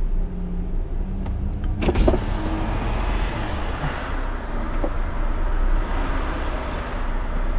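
Lorry's diesel engine running at low revs, heard from inside the cab, with a single knock about two seconds in and a hiss of noise that swells through the middle.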